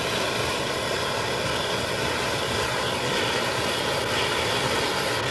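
Steady loud roar from a fuel-injection demonstration rig, its injectors spraying petrol into a row of inlet ports where it burns in large flames.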